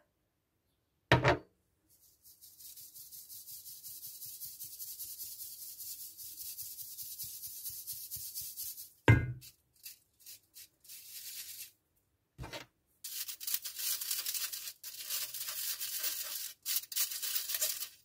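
Flour being sifted through a fine-mesh sieve over a stainless steel bowl: the sieve is shaken fast, giving a quick, even rasping hiss that runs in two long stretches. A few loud thumps break in, about a second in, around the middle and a few seconds later.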